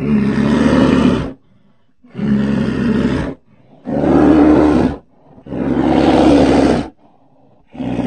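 Repeated animal roars, five in a row, each about a second long with short pauses between: a creature sound effect made to stand for the extinct short-faced bear Arctodus.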